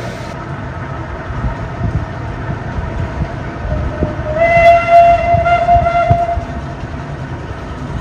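Steam traction engine running on the road with a low, uneven beat, sounding its steam whistle midway: one loud steady note lasting about two seconds.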